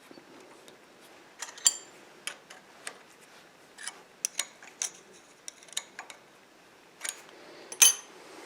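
Irregular metallic clicks and clinks of steel lathe cutters and tool-holder parts being handled and set in place. The two loudest clinks ring briefly, and no motor runs.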